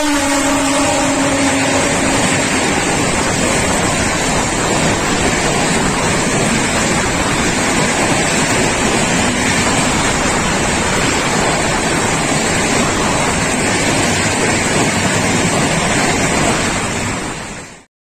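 Loud, steady rushing noise with no rhythm, over the fading tail of a train horn in the first two seconds. It fades out sharply near the end.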